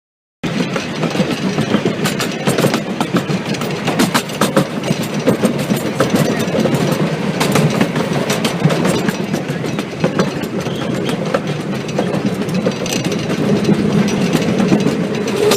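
Train running on rails: a steady rumble with irregular clicks and clatter of wheels on track, cutting in suddenly about half a second in.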